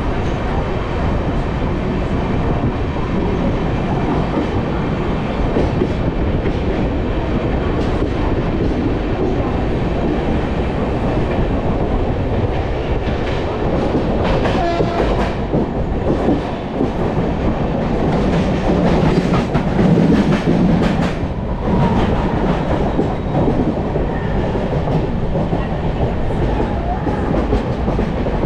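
Passenger coach of an express train running at speed, heard from its open doorway: a steady rumble of wheels on rail mixed with wind rush, and rapid clicking over rail joints about halfway through and again about three-quarters through.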